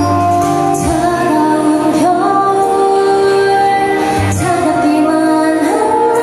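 Pop music with a female voice singing a melody over instrumental backing.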